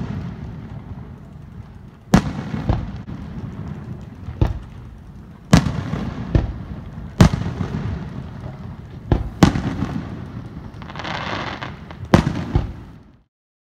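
Fireworks display: aerial shells bursting in about ten sharp bangs at uneven intervals, with a low rumble rolling on between them. About eleven seconds in there is a short stretch of crackling, and the sound cuts off abruptly near the end.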